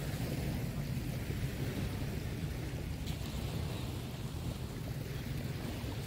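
Small waves washing onto a sandy beach, a steady hiss of surf over a constant low rumble.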